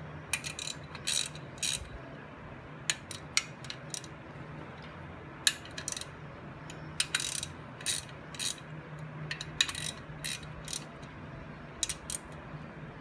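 Hand ratchet clicking in short bursts as it snugs a Harley-Davidson Sportster's rocker box bolts an eighth of a turn at a time, working corner to corner. Each burst is a few quick clicks, with pauses between them as the ratchet moves from bolt to bolt.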